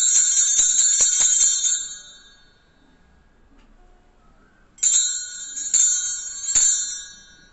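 Altar bells shaken in a rapid, high jingle at the elevation of the consecrated host, dying away about two seconds in. About five seconds in they are rung again for roughly two seconds as the priest bows, then die away.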